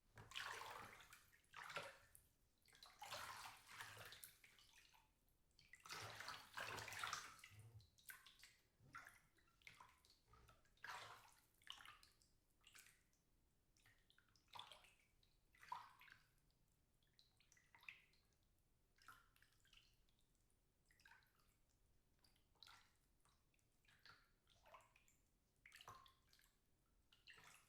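Faint water moving and sloshing in a bathtub: several longer swishes in the first eight seconds or so, then shorter, softer splashes and drips about once a second.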